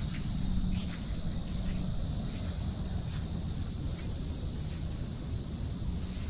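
A chorus of insects droning steadily at a high pitch, over a low rumble.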